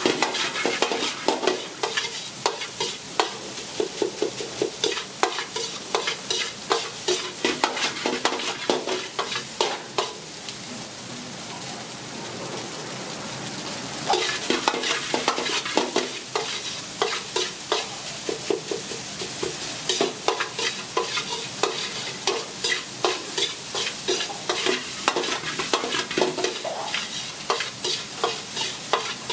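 Metal ladle scraping and knocking against a metal wok as egg fried rice is stir-fried, over a steady sizzle. The ladle strokes let up for a few seconds near the middle, leaving the sizzle on its own, then start again.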